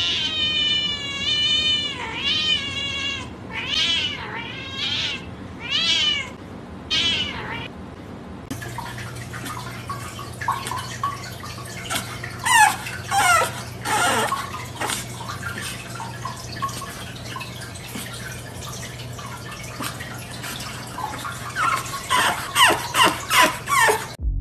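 A cat yowling: about six long, wavering meows one after another, getting shorter. Then a steady low hum with scattered short high squeaks and ticks.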